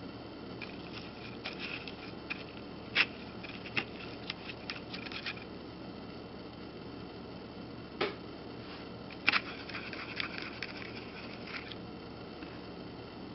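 Two runs of light, quick clicks and taps over a steady hiss, with a single louder tap between them.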